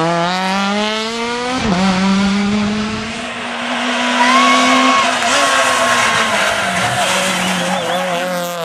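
Rally cars at full throttle on tarmac. An engine revs up, then drops sharply in pitch on a gearshift about two seconds in and holds high revs. Tyres squeal in short spells around the middle.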